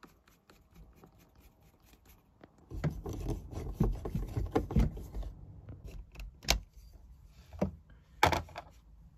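Screwdriver driving a screw to fix the anti-siphon valve's mounting bracket to a wooden bulkhead: a couple of seconds of scraping and clicking about three seconds in, then a few single sharp knocks.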